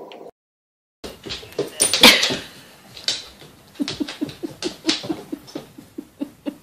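A husky with a clear plastic container stuck over its head moves about on a hardwood floor, making scattered knocks and scuffs. From about four seconds in comes an even run of short thuds, about four a second.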